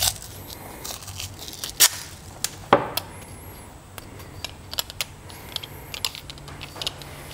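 Handling of a plastisol hand injector being wrapped in heat-resistant tape: scattered small clicks, taps and rustles of fingers pressing the tape down and turning the metal barrel, with two louder knocks a little under two seconds in and near three seconds.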